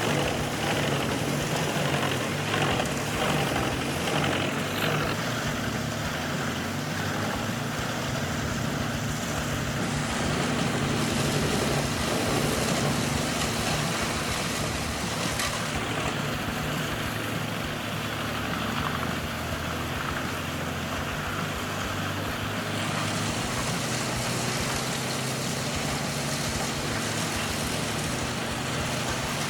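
A large wood chipper running steadily, its engine drone under a constant grinding hiss. The hiss shifts abruptly a few times.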